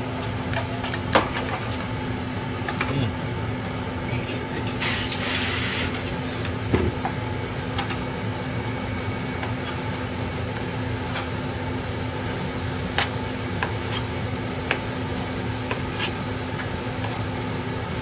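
A kitchen knife tapping now and then on a plastic cutting board as chicken livers are cut, over a steady hum and the bubbling of a sake, sugar and soy sauce mixture simmering in an aluminium saucepan on a gas flame. A short hiss about five seconds in.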